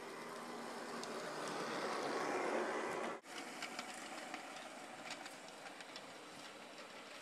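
G-scale model cable car's motor and wheels running on brass track, growing louder as it approaches, then cutting off abruptly about three seconds in. After that comes a quieter running of a small model locomotive and its wagons, with light clicks from the wheels over the track.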